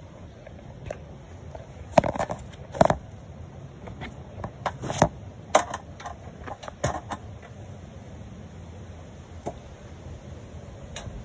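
Scattered sharp clicks and knocks from gear being handled on a steel mesh tree stand. The loudest come about two and three seconds in, more follow between five and seven seconds, and a last one comes near the end.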